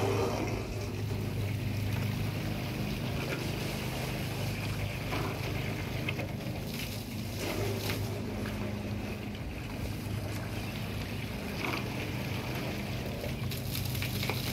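A steady low mechanical hum, with a noisy rush of hose water through the gutter and downspout over it and a few knocks.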